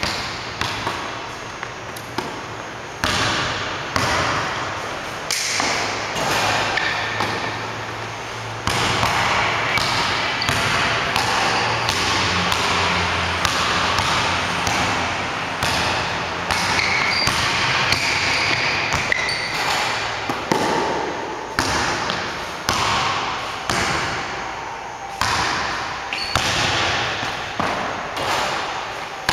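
Basketball bouncing on a hardwood gym floor, repeated dribbles at an uneven pace, each bounce echoing in the hall.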